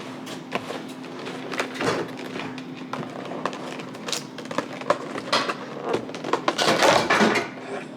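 Plastic food packaging being handled and opened: scattered rustles and clicks, busiest and loudest about a second before the end.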